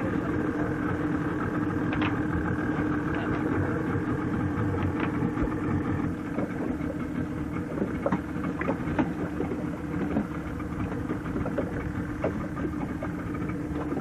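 Small boat's motor running at a steady low speed, with occasional short knocks over the hum.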